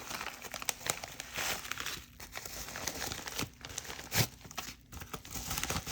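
Mail packaging crinkling and rustling as it is handled, with irregular crackles and a few sharper rustles.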